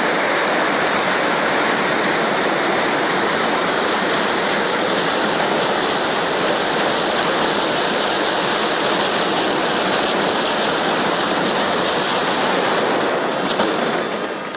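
Fireworks crackling in a dense, unbroken barrage, a steady rain-like hiss that fades out near the end.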